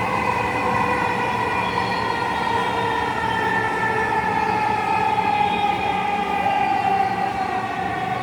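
Dhaka Metro Rail train heard from inside the carriage, its electric traction motors whining in several steady tones that fall slowly in pitch over a running rumble, as the train slows on its approach to Agargaon station.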